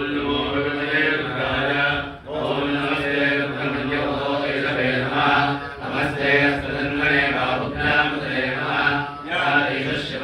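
Male voices chanting Vedic Sanskrit mantras in a steady, level recitation, breaking for breath about two seconds in and again near the end.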